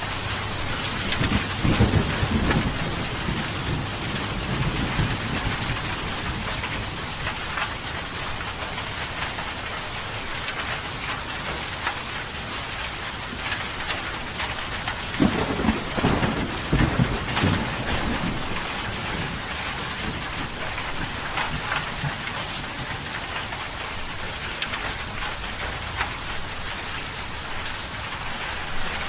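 Steady heavy rain with two rolls of thunder, one rumbling in about a second in and a stronger one about fifteen seconds in, each lasting a few seconds.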